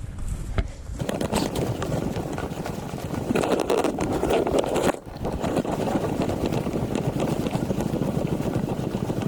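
Wind buffeting the camera's microphone: a steady low rumbling rush, briefly dropping out about five seconds in.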